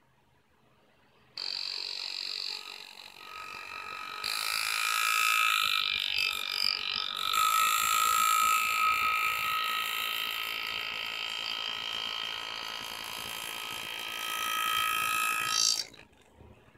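Pneumatic engraving handpiece hammering rapidly as its graver cuts scroll lines into a metal plate, a steady high buzz. It starts about a second and a half in, gets louder a few seconds later and stops abruptly near the end as the foot pedal is released.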